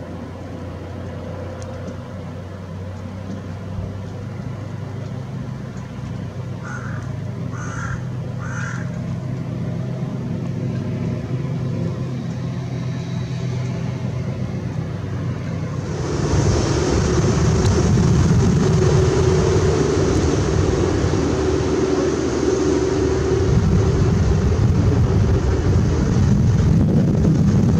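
Volga hydrofoil motorboat's engine running steadily at speed with a low hum, and three short bird calls about seven to nine seconds in. About sixteen seconds in, the engine sound jumps abruptly louder and nearer, with water noise.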